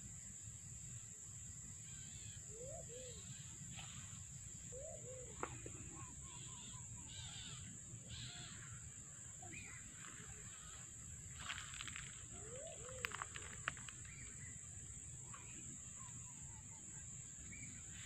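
Faint outdoor ambience: a few short rising-and-falling bird calls over a steady high hiss and a low rumble, with a handful of light clicks and taps near the middle.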